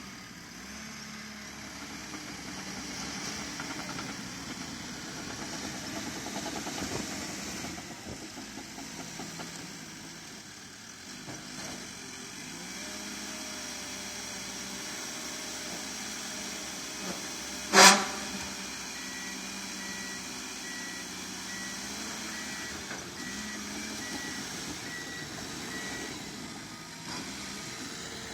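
Crawler dozer diesel engine running and working, its sound rising and falling. About two-thirds of the way through there is a single sharp, loud bang. Just after it, a faint backup alarm beeps at an even pace for several seconds.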